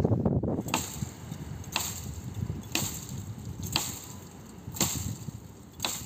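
An axe chopping into thorn-bush branches: six sharp strokes about a second apart.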